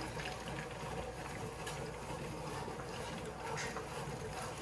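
Hand-cranked Sauce Master tomato strainer being turned steadily, its auger pressing tomatoes through the screen to separate out the skins and seeds, giving a low, even grinding with faint ticks.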